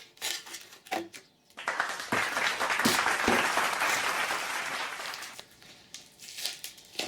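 Wrapping being pulled and crinkled while a frozen bar is worked free of its container: a few knocks, then a dense crinkling rustle for about four seconds that fades away.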